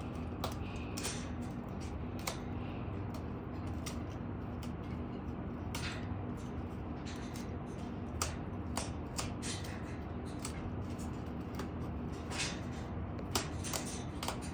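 Cockatoo chewing and shredding wood with its beak: irregular sharp cracks and crunches of splintering wood, a few a second, over a steady low hum.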